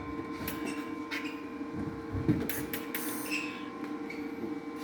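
Clinks, rattles and knocks of a welding ground clamp and its cable being handled and clamped onto the workpiece, with one sharper knock about halfway through, over a steady electrical hum.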